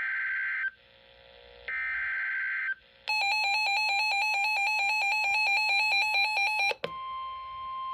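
Emergency Alert System tones. Two header data bursts of about a second each, with a second's gap, give a harsh electronic chirr. About three seconds in, a fast warbling two-tone alarm starts and runs for about four seconds. It cuts off, and a steady National Weather Service warning tone takes over.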